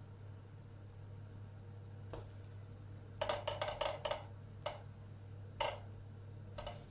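Light clicks and taps of a silicone spatula against a non-stick frying pan as small pancakes are turned over: one tap about two seconds in, a quick run of about six a second later, then a few single taps. A low steady hum runs underneath.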